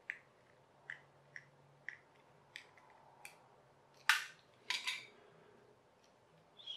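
Light plastic clicks from a small toy helicopter as its battery compartment is opened, about six spaced clicks, then two louder plastic clatters about four and five seconds in.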